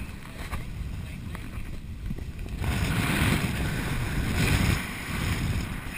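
Wind rushing over a paraglider's camera microphone in fast flight on full speed bar. It swells louder from about two and a half seconds in until about five seconds.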